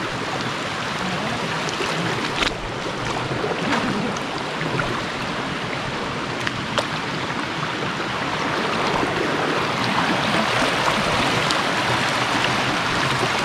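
Stream water rushing steadily over rocks, with a few faint clicks now and then.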